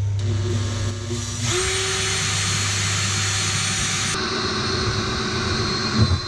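Cordless drill boring a hole through a fibreglass sailboat hull from inside. The motor whines at first, then about one and a half seconds in the sound turns louder and harsher as the bit cuts into the hull.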